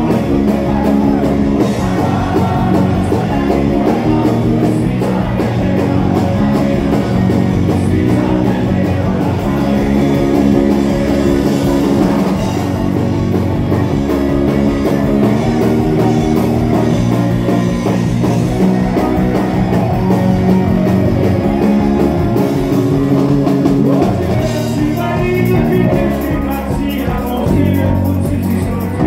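Live folk-rock band playing a song: a male lead singer over accordion, guitar and drums.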